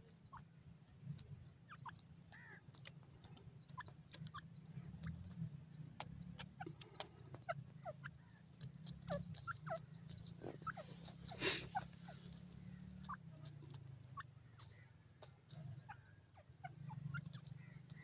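Grey francolin foraging on dry soil: scattered quiet ticks and short soft notes over a steady low hum, with one sharper click about two-thirds of the way through.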